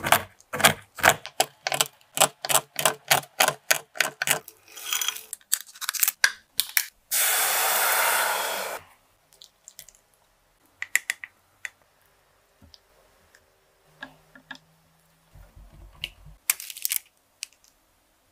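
Quick rhythmic chopping strokes, about four a second, typical of a knife cutting a bar of chocolate on a board. They are followed by a steady rushing noise lasting about two seconds, then scattered light clicks and taps.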